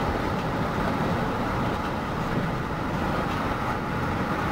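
Steady road and tyre noise with engine hum inside a car cruising on the freeway.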